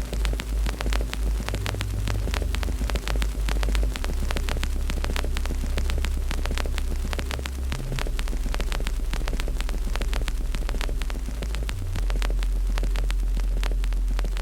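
Wood fire crackling with frequent irregular pops, over a steady low rumble.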